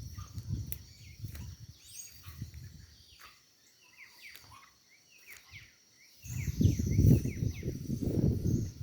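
Small birds chirping in quick, short downward-sweeping notes over a steady high insect trill. A loud, irregular low rumble comes in during the last few seconds and drowns the rest.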